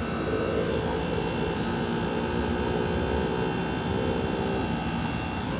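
Split-type air conditioner's outdoor unit running with a steady drone while refrigerant is being charged, with a held tone from about half a second in until near the end.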